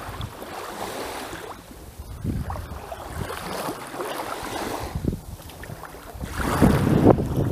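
Small waves washing in on a sandy shore, with wind rumbling on the microphone; the sound swells louder near the end.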